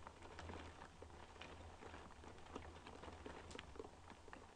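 Rain hitting a window pane, faint, with many small scattered ticks of drops. Beneath it runs a low steady hum.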